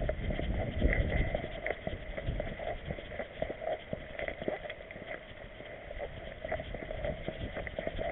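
Handling noise from an action camera strapped to a walking dog's back: irregular knocks, thumps and rubbing as the camera is jostled with each stride.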